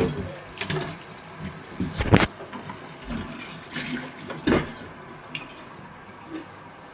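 Tools and parts being handled while a replacement part is fitted into a Vokera combination boiler: a handful of sharp knocks and clicks, two of them louder, over a steady hiss.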